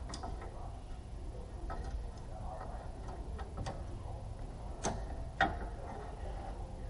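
Scattered light clicks and knocks of tools and car parts being handled, five or six over several seconds, the sharpest about five and a half seconds in, over a low steady rumble.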